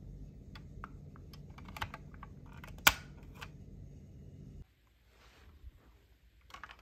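Small clicks and taps of a die-cast toy coach bus being handled, its little hinged door snapped shut, with one sharp, louder click about three seconds in. A low steady hum underneath cuts off suddenly past halfway, followed by faint rustling.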